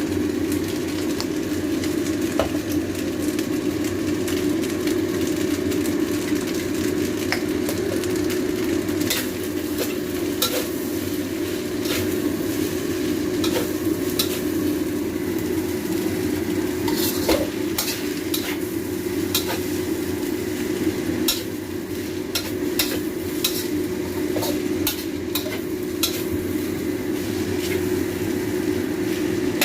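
Fried noodles sizzling in a pan as they are stirred, with the utensil clicking and scraping against the pan many times, over a steady low hum.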